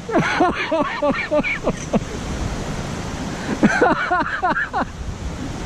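People's voices, calling out or talking in short phrases, over a steady low rushing noise such as wind on the microphone.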